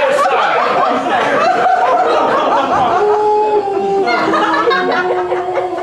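Audience laughing. From about three seconds in, a voice holds a long note that steps down in pitch while the laughter goes on underneath.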